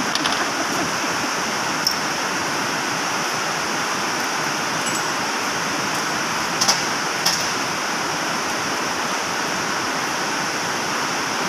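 Steady, even rushing noise, like air from a fan or blower, with three faint light clicks, the last two close together about seven seconds in.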